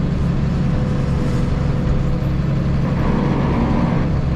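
Tractor engine running steadily, heard from inside the cab, with a PTO-driven bush hog rotary mower engaged.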